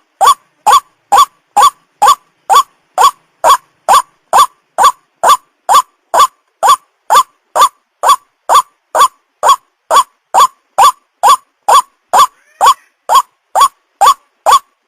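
White-breasted waterhen (ruak-ruak) lure call: a short, rising note repeated very evenly about twice a second, a recording played to attract waterhens. A faint, different chirp is heard once near the end.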